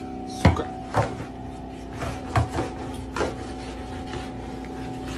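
A mop handle poking and scraping under a refrigerator, knocking against it with a handful of sharp knocks in the first three or so seconds, over a steady hum.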